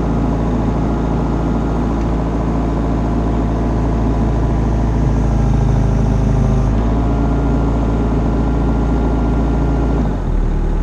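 A machine's engine running steadily; its note shifts about seven seconds in and drops near the end.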